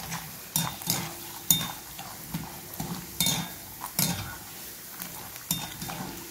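Stainless-steel spider skimmer stirring cashews frying in hot oil, clinking and scraping irregularly against an iron kadai, over a steady faint sizzle of the oil.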